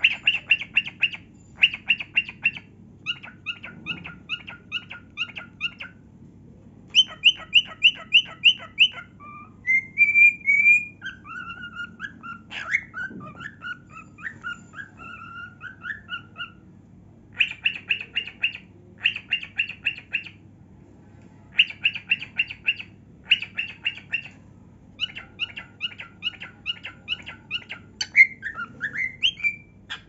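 Cockatiel singing: quick runs of repeated chirps in groups with short pauses between, and a few whistled notes that rise and fall in the middle and near the end.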